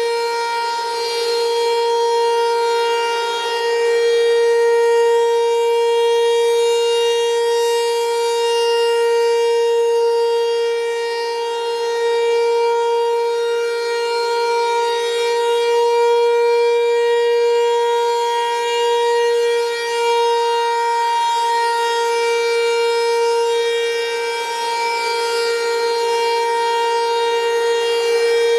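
Federal Signal Equinox electronic outdoor warning siren sounding the steady full-alert signal: one unwavering pitch that swells and fades gently in loudness as its horn rotates. It is the test of a nuclear plant's emergency warning siren.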